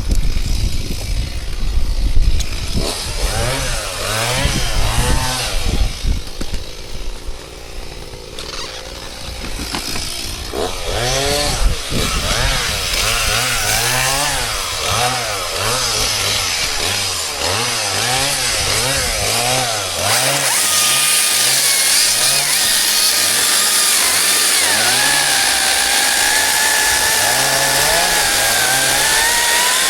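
Chainsaw running and cutting wood, its engine pitch swinging up and down in a regular rhythm, then held at a steadier high pitch for the last third.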